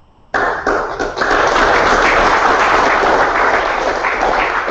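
Audience applauding. The clapping starts suddenly about a third of a second in, holds steady, then begins to thin into separate claps near the end.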